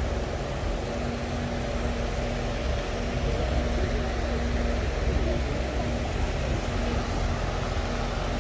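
Steady outdoor background noise with a faint, steady low hum running under it.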